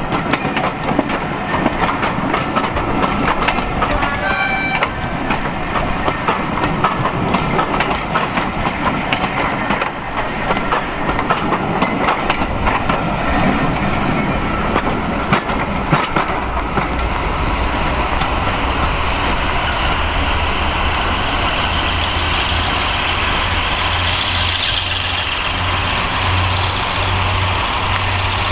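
Passenger coaches rolling past close by, their wheels clicking over the rail joints, for about the first half. Then a diesel locomotive's engine runs with a steady low drone.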